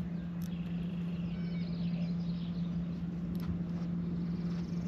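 Steady low hum of a boat motor running at an even pitch, with a few faint clicks.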